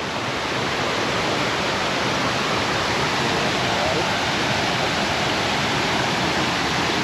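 Steady rushing of a small waterfall close by, an even wash of falling water.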